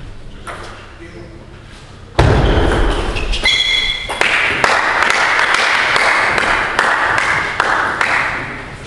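Quiet table tennis play, then a sudden loud thump about two seconds in. A short shout follows a second later, then several seconds of loud, even noise.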